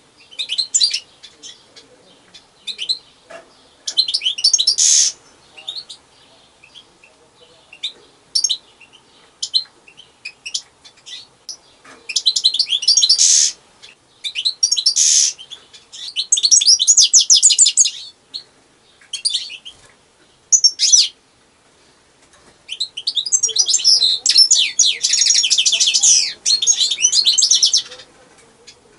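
European goldfinch singing: bursts of rapid, high twittering and trills separated by short pauses, with the longest run of song near the end.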